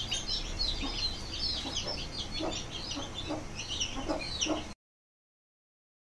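Aseel chicks peeping: a rapid, continuous stream of short high chirps, with a few lower notes mixed in, cutting off suddenly near the end.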